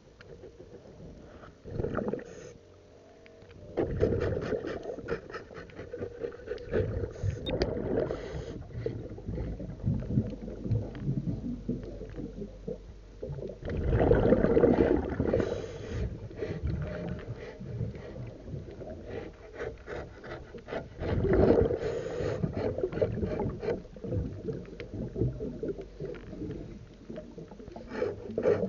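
Underwater scraping and rubbing on a boat's hull as algae and crusted growth are cleaned off, in many quick strokes, with louder surges three times.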